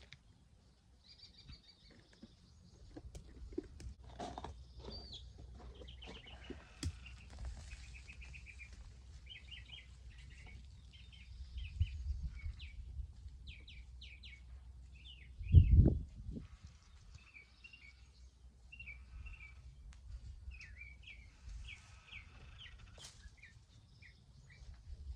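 Small birds chirping and trilling repeatedly, in short phrases, over a low rumble, with scattered soft knocks and a single loud thump a little past the middle.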